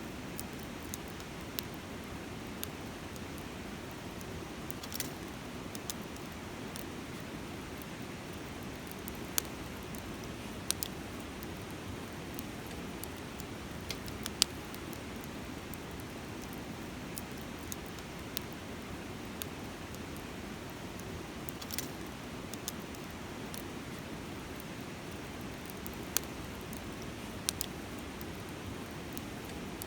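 Wood campfire crackling, with sharp pops at irregular moments over the steady rush of a river.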